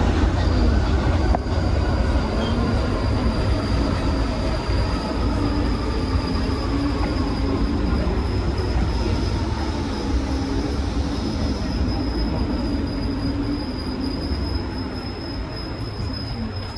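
Paris Métro MP73 rubber-tyred train running, heard from the driver's cab: a steady low rumble of the running gear with a thin high whine. A second, higher whine joins about twelve seconds in, and the sound eases off a little near the end.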